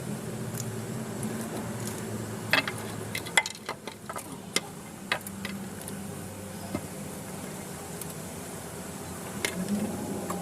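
Several short, sharp metallic clinks and taps, like tools or engine parts being handled, bunched about two to five seconds in, over a steady low hum.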